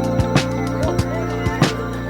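Background music with sustained chords and regular drum hits.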